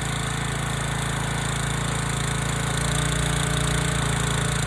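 Gas pressure washer's small engine running steadily, a little louder about three seconds in.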